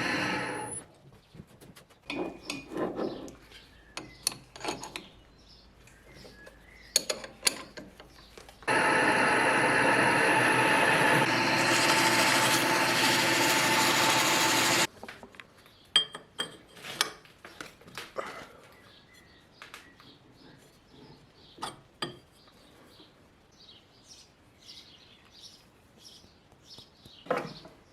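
Workshop work sounds: scattered clicks and knocks of metal parts being handled, and a power tool running steadily for about six seconds midway, starting and stopping abruptly.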